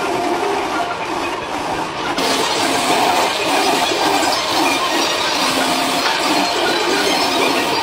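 Rotary buffing tool with an abrasive wheel grinding rubber off a truck tyre sidewall to prepare a crack for repair: a steady, harsh grinding whir that grows hissier about two seconds in.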